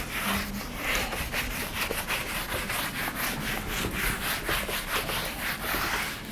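Whiteboard eraser being rubbed across a whiteboard, wiping off marker writing in quick back-and-forth strokes, a few strokes a second.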